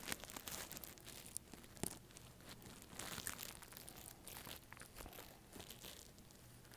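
Faint crinkling and tearing by hand of a small cardboard mystery box and the sealed black blind-bag wrapper inside it, heard as scattered soft crackles and rustles.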